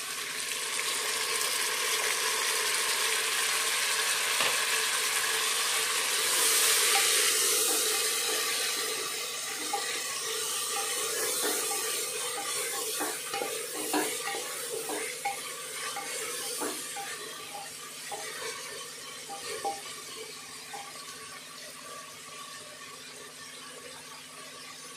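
Sliced tomatoes sizzling in hot oil with fried onions in an aluminium pressure cooker, the hiss strongest in the first several seconds and slowly fading. A wooden spatula stirs and knocks against the sides of the pot.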